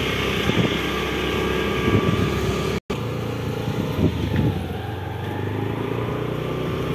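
Motorbike engine running steadily while riding, with wind rumbling on the microphone. The sound cuts out for a split second about three seconds in.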